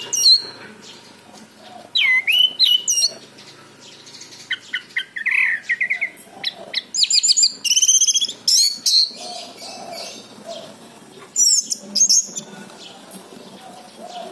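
Orange-headed thrush song: several bursts of loud, fast, varied whistled phrases and trills, the longest run in the middle, with pauses between.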